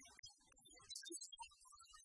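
Near silence: a very faint track with only scattered low-level traces and no clear speech.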